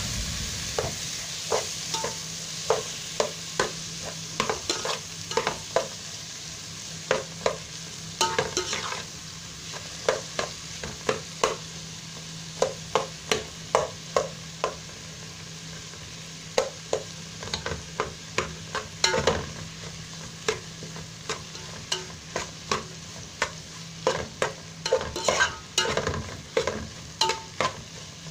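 A metal spoon stirring tomatoes and onions as they sauté in a metal pot: repeated, irregular clinks and scrapes of the spoon on the pot over a faint, steady sizzle.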